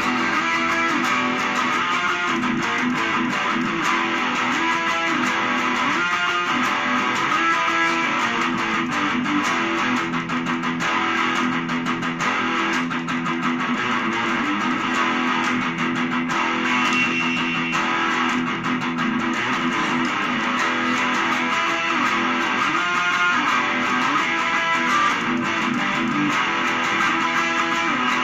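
Black solid-body electric guitar played continuously, a fast picked lead line of quickly changing notes.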